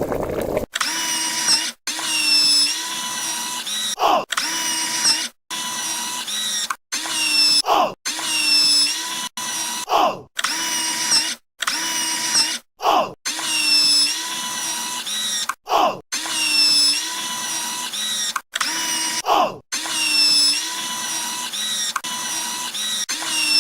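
A mechanical whirring sound effect, like a power tool, with a steady high whine. It is chopped into repeated bursts of one to two seconds with abrupt short gaps, and a quick sweep in pitch comes at several of the cuts.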